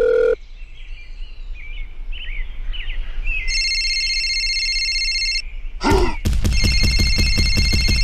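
Bird-like chirping, then a steady electronic ringing tone for about two seconds, then from about six seconds in a loud, rapidly pulsing ring like a telephone bell.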